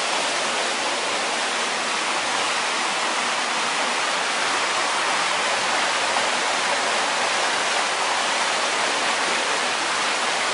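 Steady, even rushing of water, with no separate splashes or knocks standing out.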